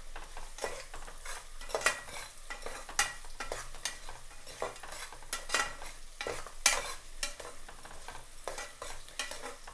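Chopped onions and green chillies sizzling as they fry in hot oil in a pan, with a spoon stirring and scraping against the pan in irregular strokes.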